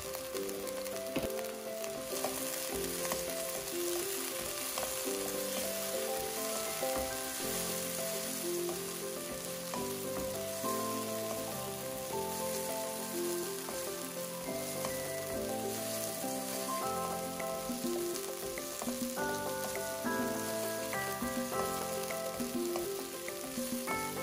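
Saffron milk cap mushrooms and onion sizzling as they fry in olive oil in a nonstick pan, stirred now and then with a wooden spoon. A soft background melody of held notes plays throughout.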